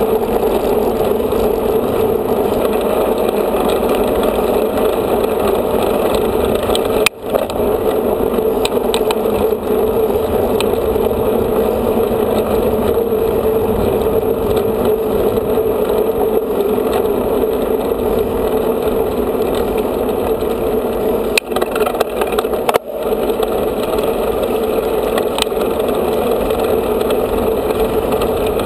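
Steady rush of wind and rolling noise on a bike-mounted camera microphone while a mountain bike rides on tarmac, dropping out briefly about seven seconds in and again a little over twenty seconds in.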